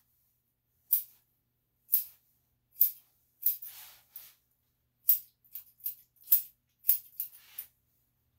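Steel grooming scissors snipping matted hair from a dog's paw: sharp metallic snips about once a second, then a quicker run of snips in the second half.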